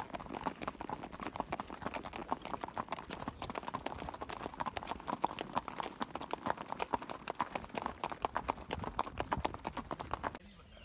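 Hoofbeats of several ridden horses moving together: a steady, uneven clatter of strikes that cuts off suddenly near the end.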